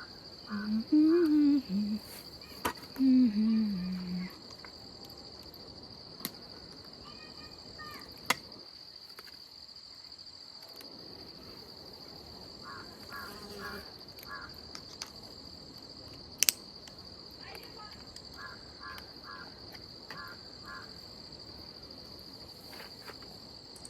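Steady, high-pitched drone of crickets, with a woman singing a Nepali song for the first few seconds.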